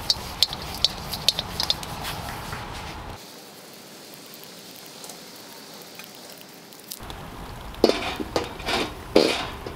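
A paper towel rubbing oil around the inside of a carbon steel wok, making a run of quick scratchy ticks. Near the end the wok is set onto the rocket stove and clanks against it several times with a short metallic ring.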